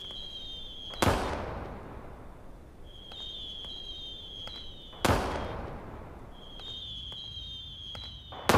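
Whistling firework rockets going off three times. Each is a high whistle of one to two seconds that ends in a sharp bang with a crackling tail, about a second in, about five seconds in and near the end.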